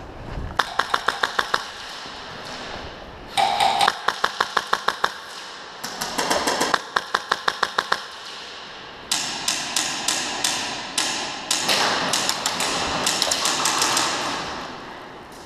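Airsoft guns firing full-auto: three short bursts of rapid clicking shots, then from about nine seconds in a longer, more ragged run of shots and knocks that fades out near the end.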